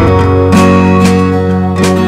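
Background music led by a strummed acoustic guitar, held chords with a strum every second or so.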